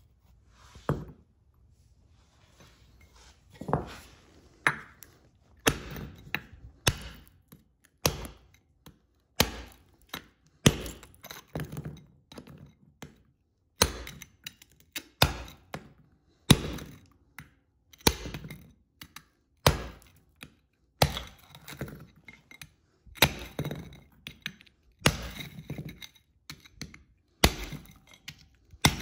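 Steel bar driven down into a clay-graphite crucible, breaking up the hardened green glass slag over a cooled wootz steel ingot: repeated sharp knocks about once a second, with glass cracking and crunching.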